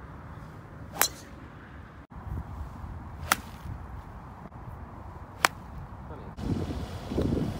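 Three separate golf shots, each a single sharp crack of a club head striking the ball: the first, about a second in, a driver hitting off the tee, the other two full swings a couple of seconds apart. Wind rumbles on the microphone near the end.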